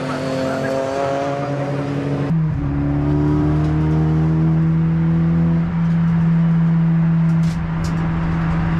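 Honda Civic Type R race car's engine under hard acceleration on track, its pitch climbing slowly, with a sudden break about two seconds in before it pulls again.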